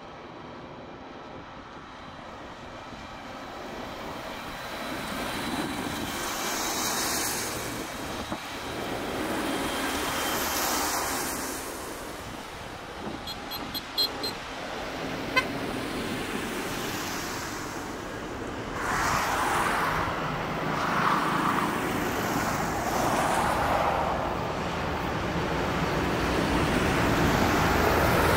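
A procession of large diesel farm tractors driving past one after another on a wet road. Their engines and tyre hiss swell as each machine comes close, and the sound grows louder overall. A few short high beeps come around the middle.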